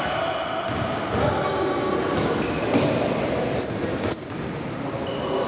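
Basketball shoes squeaking on a hardwood gym floor during play: a string of short, high squeaks, a few held for up to about a second, over a steady din of players and spectators in a large echoing hall.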